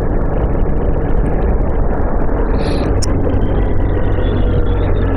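Motorcycle riding at speed: steady engine and wind noise picked up by a mic mounted on the bike or helmet.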